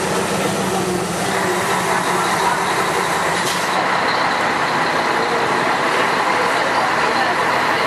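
Scania F-113 bus's diesel engine running steadily under way, with a short hiss about three and a half seconds in.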